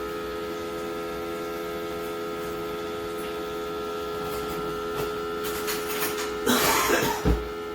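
Hamilton Beach FlexBrew single-serve coffee maker humming steadily while it fails to brew. About six and a half seconds in, a short burst of rattling noise ends in a low thump.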